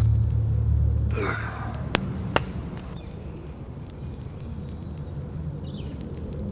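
A fire flaring with a short whoosh about a second in, then two sharp crackling pops. A low rumble fades out over the first second, and birds chirp faintly.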